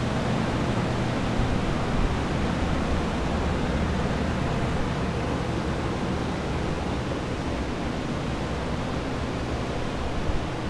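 Many axial air movers and dehumidifiers running together: a steady rush of air over a low hum. This is water-damage drying equipment at work, drying out a flooded building.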